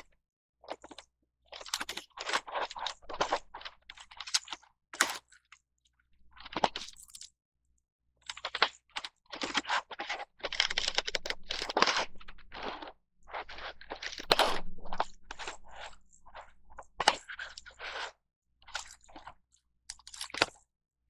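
Clear plastic packaging crinkling and crackling in irregular bursts as a cellophane sleeve is unwrapped and rigid clear blister trays are pulled apart and handled.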